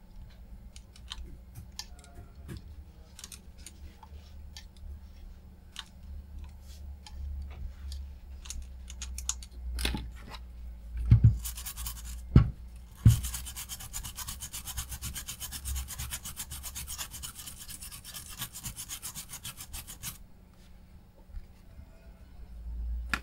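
Light scratching and rubbing on a circuit board, then three sharp knocks, followed by an aerosol spray can hissing steadily through its straw for about seven seconds as the board's corroded connector area is cleaned.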